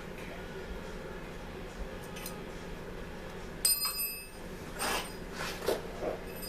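A small metal object strikes something about halfway through and rings briefly with a bell-like tone. A few short scraping and handling noises follow as engine parts are worked on.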